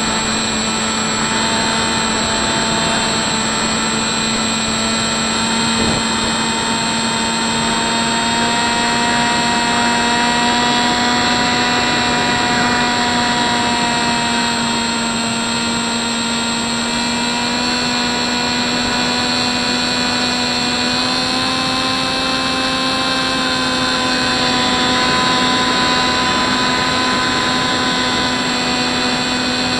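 Electric motor and propeller of a Hubsan Spyhawk RC plane whining steadily in flight, heard from on board, over a steady hiss. The pitch drifts slowly up and down as the throttle changes.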